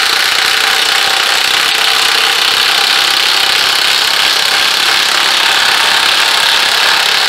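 Two cordless high-torque impact wrenches, a Milwaukee M18 Fuel and a Ridgid Octane, hammering together as they drive 7-inch lag bolts into a pressure-treated wooden post. It is a loud, steady, rapid rattle of impacts.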